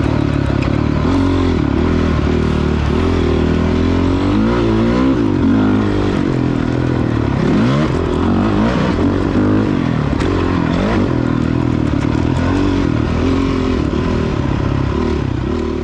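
A 2009 Honda CRF450X dirt bike's single-cylinder four-stroke engine, revving up and down over and over as it is ridden, its pitch rising and falling every second or two.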